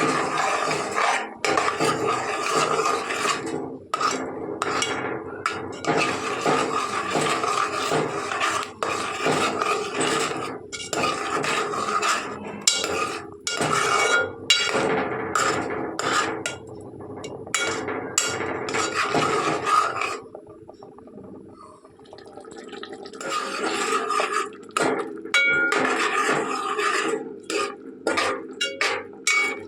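Metal utensils clinking, scraping and knocking against pots and pans, with a quieter stretch about two-thirds of the way through.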